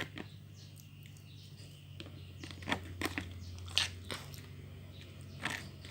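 Homemade glue slime squelching and clicking as it is pressed and pulled apart by hand, in a few separate short snaps over a low steady hum; the slime is still too sticky.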